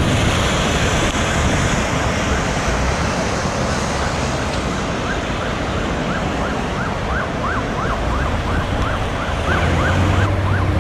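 Steady road traffic noise, and from about halfway an emergency vehicle's siren in a fast yelp, sweeping up and down a couple of times a second and getting louder toward the end.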